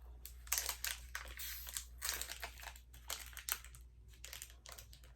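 Snack wrapper crinkling in the hands in a run of irregular crackles as a chocolate truffle is unwrapped.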